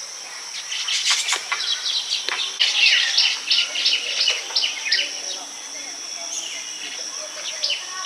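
Baya weavers chattering, with a fast run of short chirps at about four or five a second from a few seconds in, over a steady high insect drone.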